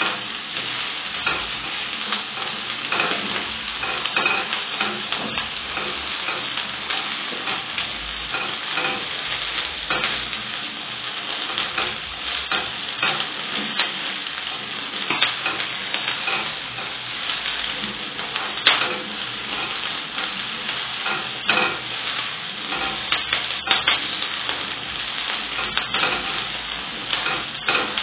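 Onions frying in hot oil in a pan, sizzling steadily, while a spoon stirs them with frequent clicks and scrapes against the pan.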